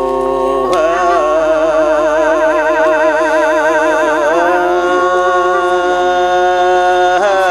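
Tai Lue khap singing: one long held note with many overtones, wavering in a fast vibrato through the middle, then steadying before it breaks off near the end.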